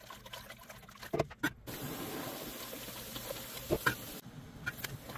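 Pickling brine of sugar and vinegar bubbling in a stainless steel pot as it comes up to the boil, stirred with a silicone spatula, with a few light clicks against the pot.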